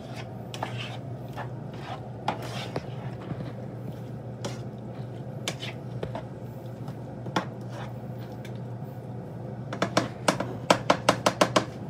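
Black plastic spatula scraping and tapping in a nonstick frying pan of beef and onions as the meat is cut up with its edge. Scattered clicks turn, near the end, into a quick run of sharp taps, about five a second. A steady low hum runs underneath.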